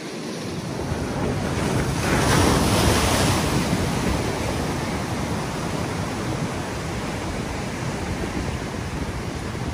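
Ocean swell surging and washing over a rock ledge, with wind buffeting the microphone in a low rumble; the loudest wash swells up about two seconds in and eases off after.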